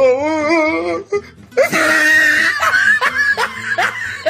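Meme sound effect: a voice holding one wavering note with heavy vibrato for about a second, then after a brief gap a loud burst of rapid, repeated laughter over a music-like backing.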